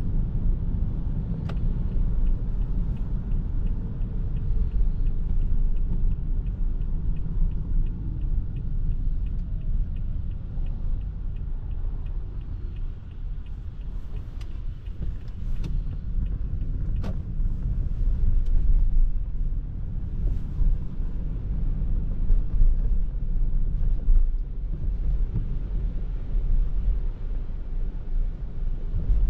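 Toyota Prius α driving, a steady low road and tyre rumble on a rainy day, with a run of faint, evenly spaced ticks through roughly the first half and a few sharp clicks.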